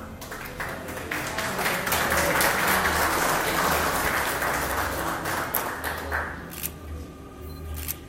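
Audience applauding: the clapping builds over the first couple of seconds, holds, then dies away near the end.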